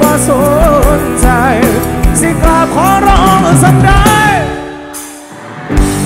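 Live rock band playing amplified through a large outdoor PA, with drums keeping a steady beat under a sung melody. The band drops back briefly about four and a half seconds in, then comes back in full near the end.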